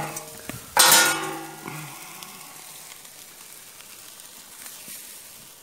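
Chicken kebabs and sausages sizzling in a wire grid over hot charcoal, freshly basted with marinade. About a second in there is a louder hiss lasting about a second, then a steady, fainter sizzle that slowly dies down.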